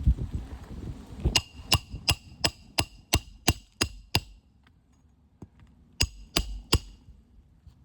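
Hammer driving roofing nails through asphalt shingles: a quick run of about nine ringing strikes, then a pause and three more.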